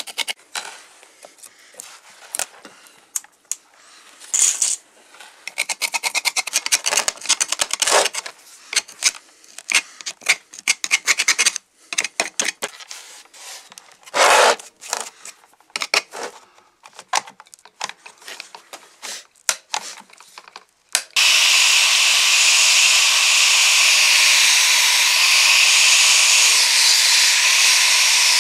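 A screwdriver scraping and picking crusted rust and debris off an antique cast-iron clothes iron, in irregular scratches and clicks. About twenty seconds in, an angle grinder with a wire cup brush starts suddenly and runs steadily against the iron, brushing the rust off.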